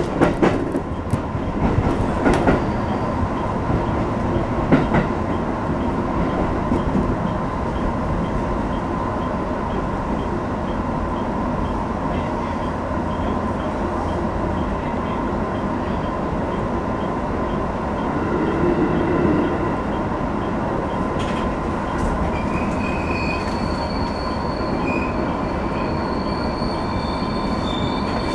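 205 series electric commuter train heard from the driver's cab, running with a steady rumble and a few wheel clacks over rail joints in the first five seconds. Thin high brake squeal sets in during the last quarter as it slows into the station.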